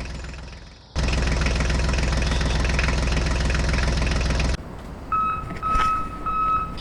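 A small vehicle engine runs steadily, cut in and out abruptly by edits. Then an electronic beep repeats about twice a second, like a construction vehicle's reversing alarm.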